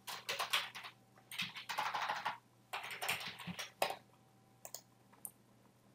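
Typing on a computer keyboard in three quick runs of keystrokes, stopping about four seconds in, then a few single faint clicks.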